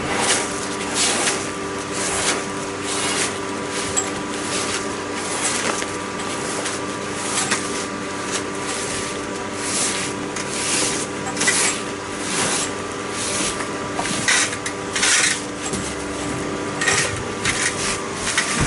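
Steel cable scraping as it is pushed by hand, stroke after stroke, through the old water service pipe, about one rasping stroke a second over a steady hum.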